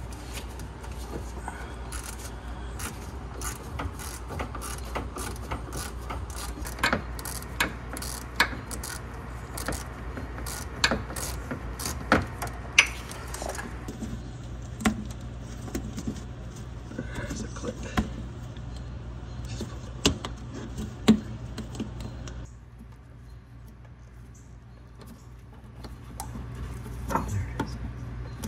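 Plastic bag crinkling and rustling as the packaged fuel pump assembly is handled, with many sharp crackles. About halfway through it changes to scattered clicks and taps of hands and tools working at the underside of the fuel tank, over a steady low hum.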